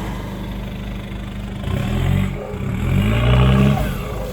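Off-road 4x4 engine idling, then revved up twice in rising surges that fall back each time.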